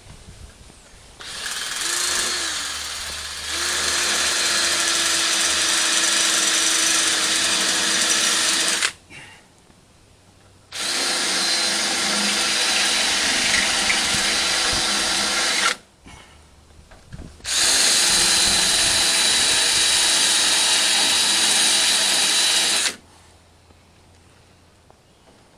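Electric drill turning a spot weld cutter, drilling out spot welds in the sheet-metal body of a Ford Econoline van. It runs in three bursts of steady whining and grinding, the first about eight seconds long and the other two about five seconds each, with short pauses between them.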